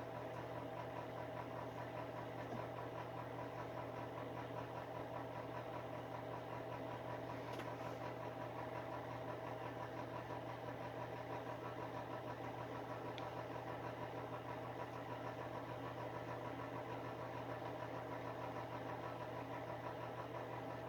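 Electric space heater's fan running steadily with a low hum.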